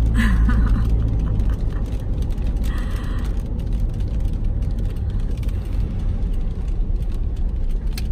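Steady low rumble of a car driving, heard from inside the cabin, with rain tapping on the windshield and roof.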